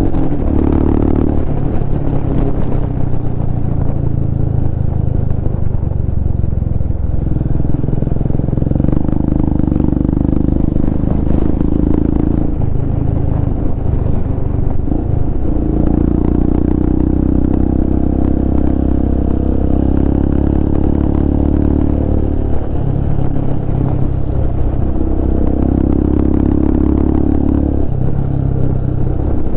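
Royal Enfield Himalayan's single-cylinder engine running loud through a Red Rooster aftermarket exhaust with its dB killer removed, under way on the road. Its note shifts several times as the throttle changes.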